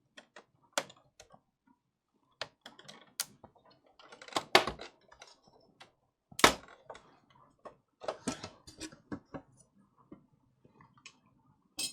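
Irregular clicks and taps of small hard objects being handled, with louder knocks about four and a half and six and a half seconds in.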